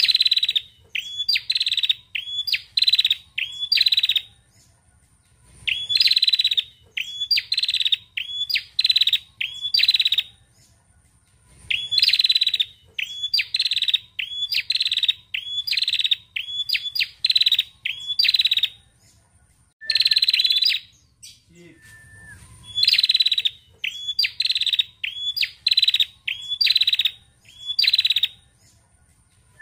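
Caged female tailorbird (prenjak) calling: fast runs of sharp, repeated high chips, about two a second, in bouts of a few seconds broken by short pauses.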